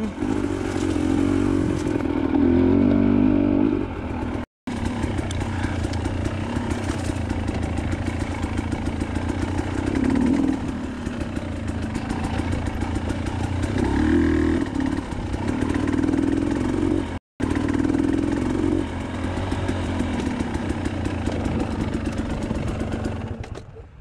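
KTM 300 TPI two-stroke dirt bike engine working up a steep, rocky single-track climb, its revs rising and falling with the throttle. The sound cuts out completely twice for a moment, and the engine drops away just before the end.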